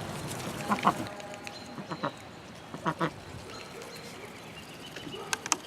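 Domestic ducks quacking a few times, short separate calls spaced out across a few seconds.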